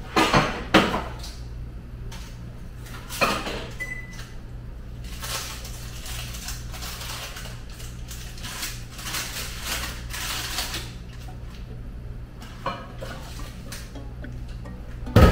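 Kitchen clatter: pans and dishes knocking and being set down, with loud clanks about a second in and again at the very end, and softer scraping and rustling in between. A steady low hum runs underneath.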